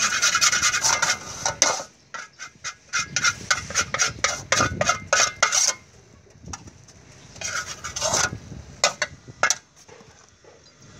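Metal spatula scraping and knocking against an empty metal wok in quick runs of strokes, clearing out leftover bits of fried noodles. The strokes stop about six seconds in, come back briefly around eight to nine seconds, and then it goes quiet.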